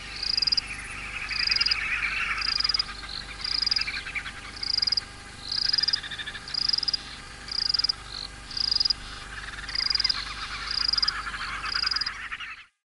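Evening chorus of frogs and insects: a short, high call repeating about once a second over a denser trilling chorus that swells and fades, cutting off abruptly near the end.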